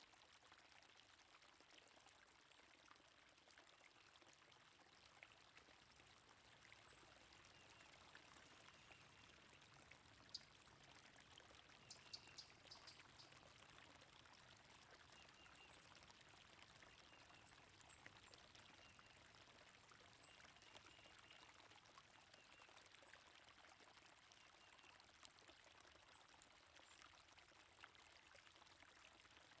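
Faint, steady flow of running water, with scattered faint high bird chirps.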